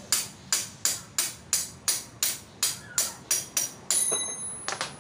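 Hand hammer striking metal at a Honda Scoopy scooter's engine mount, about three sharp blows a second, each with a short metallic ring, to knock the engine free of the frame. About four seconds in, one blow rings on with a clear metallic tone. A few quicker hits follow, then the hammering stops.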